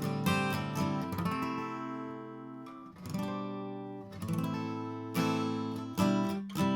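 A 2001 Gibson J-45 round-shoulder acoustic guitar being played: picked notes and strummed chords that ring on between strokes. Sharp strums come about three seconds in, then roughly every second towards the end.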